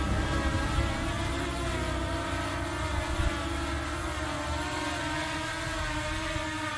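Ferietelf Wing-12 quadcopter drone's four propellers and motors buzzing in flight, a steady multi-tone whine whose pitch wavers slightly as the drone adjusts.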